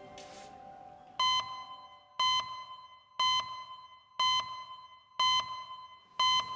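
Electronic alarm beep, a single high tone sounding six times about a second apart, each starting sharply and ringing on briefly.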